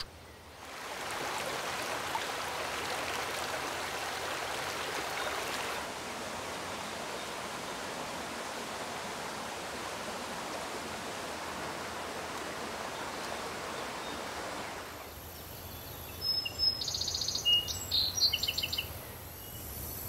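Stream water rushing over rocks, a steady noise that is louder for the first few seconds. Near the end it gives way to a quieter outdoor background with a few short bird chirps.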